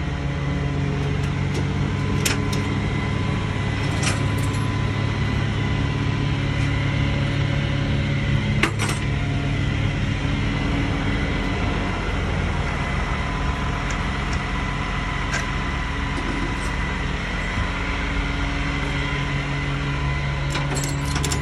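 Flatbed tow truck's engine running steadily, a low hum with a faint steady whine above it, with a few light clicks.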